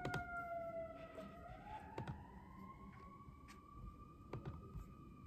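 A faint siren wailing: its pitch slides down for about a second, then slowly rises and holds. Scattered keyboard key clicks sound over it.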